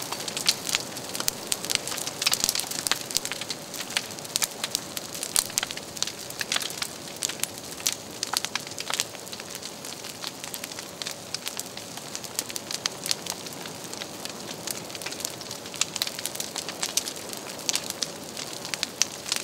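Large open fire with towering flames burning, crackling and popping irregularly over a steady hiss.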